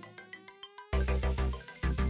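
Electronic background music with a heavy bass beat. The beat drops out briefly under a single rising synth tone and comes back in about a second in.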